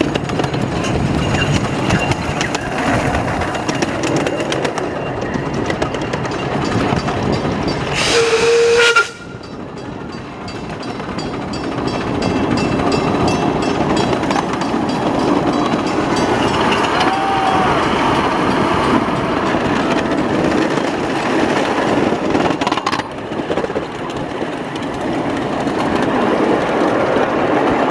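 Miniature ride-on train running along its track, with the steady rumble of wheels on rails. About eight seconds in, a loud whistle blasts for about a second.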